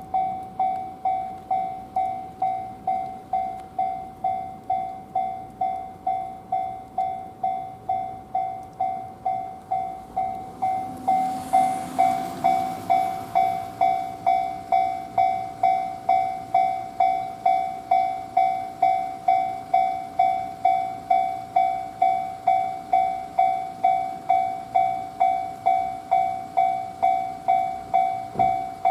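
Japanese railway level crossing's electronic warning bell ringing on and on, about two dings a second, while no trains are running: the crossing is suspected to be faulty. A brief rush of noise passes about eleven seconds in.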